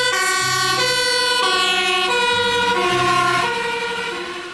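Toy fire truck's electronic siren sounding: buzzy tones stepping between pitches about twice a second, fading out near the end.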